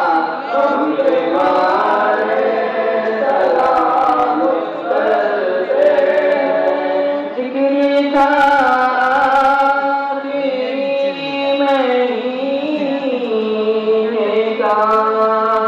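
A group of voices singing a devotional salaam together, slow and chant-like, with long drawn-out notes.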